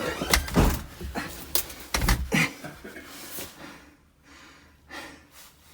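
A few knocks and clanks from a steel pry bar working a heavy safe up off a floor, with heavy breathing of effort; it goes quieter in the second half.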